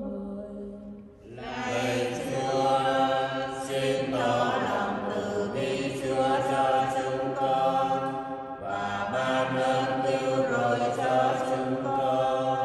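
Responsorial psalm sung at Mass: slow, chant-like church singing in long held notes. There is a break between phrases about a second in and again near nine seconds.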